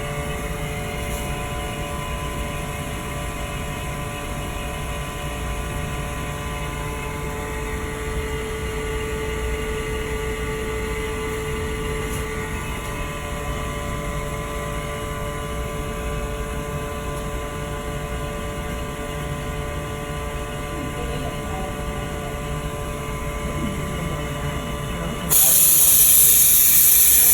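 OCA vacuum lamination machine running its laminating cycle: a steady pump drone with several steady tones. Near the end, a loud hiss of air lasting about two seconds.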